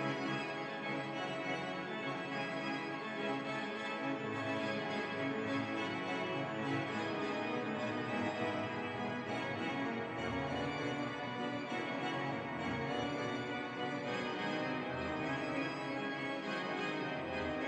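York Minster's pipe organ playing full, sustained chords, with deep pedal bass notes sounding several times from about ten seconds in.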